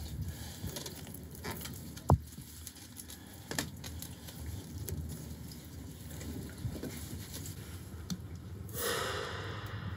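Hands working a black polyethylene water pipe into a press-in fitting: quiet rubbing and handling noise, with one sharp click about two seconds in and a short hiss near the end.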